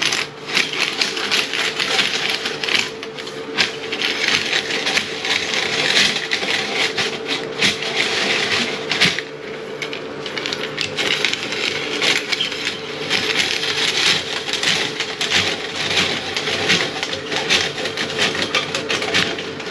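Powered drain snake running, its steady motor hum under a continuous rattling and clicking of the cable as it is fed down the drain line.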